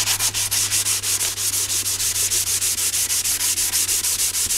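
Hand sanding of a wet carbon fibre windshield with a soft sanding block: quick, even back-and-forth scrubbing strokes, about five a second. It is detail sanding to scuff the part flat before clear coat.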